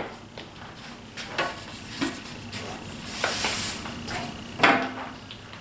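Workshop handling sounds: a few light knocks of wood and tools being set down and moved, with a brief rub or brush about halfway through.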